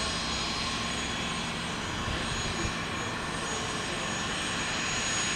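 Dassault Falcon 50's three Garrett TFE731 turbofans running at low power as the jet taxis, a steady rush with a thin high whine over it.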